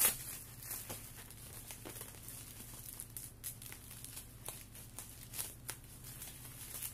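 Plastic packaging crinkling as it is handled, with scattered small clicks and crackles.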